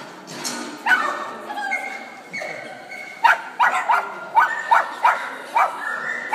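A dog barking: one bark about a second in, then a quick run of about seven short, high barks, roughly two a second.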